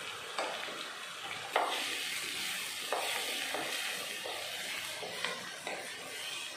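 Chopped onions and tomatoes sizzling in hot oil in a pan as a wooden spatula stirs them. There is a steady frying hiss, broken by several short knocks and scrapes of the spatula against the pan.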